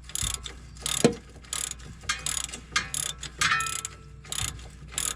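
Hand ratchet wrench clicking in repeated back-and-forth strokes, about two a second, as a bolt on a car's strut assembly is worked loose by hand, with a couple of sharper metal knocks.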